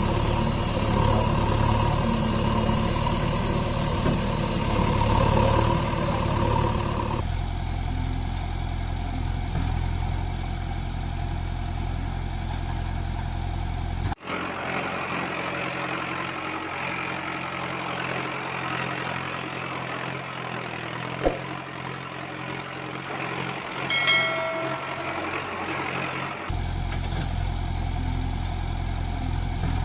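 Vehicle engine idling sounds in several spliced segments, each a steady hum that changes abruptly at the cuts, with a short pitched honk about 24 seconds in.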